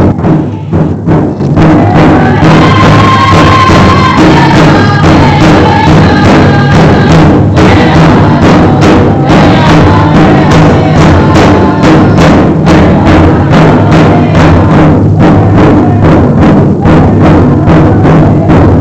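A powwow drum group: several singers striking one shared big powwow drum in a steady, even beat while singing a Cree powwow song together. The beat drops away briefly about a second in, then carries on. The recording is loud throughout.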